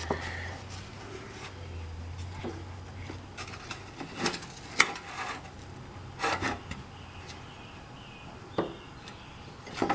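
Light handling noises: irregular taps, clicks and faint rubbing as a steel bending bar and an aluminium trim tab sheet are nudged into position on a workbench, the sharpest click about halfway through.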